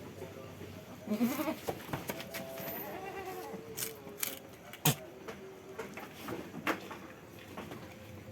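Jamunapari goat bleating, one drawn-out wavering call starting about two seconds in, with several sharp knocks or clicks around it, the loudest about five seconds in.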